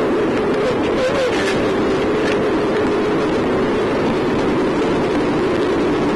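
Steady running noise inside a moving locomotive's cab: an even hiss over a low steady hum, with a brief wavering tone about a second in.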